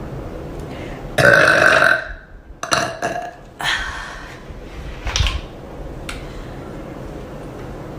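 A young woman lets out one long, loud, deep burp about a second in, followed by several shorter, quieter sounds.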